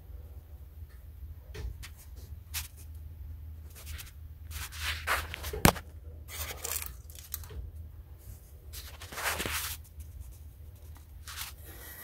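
Irregular rustling and scraping from handling, with one sharp click about halfway through, over a low steady hum.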